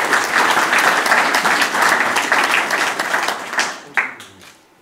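Audience applauding, a dense patter of many hands clapping that thins out and stops after about four seconds with one last clap.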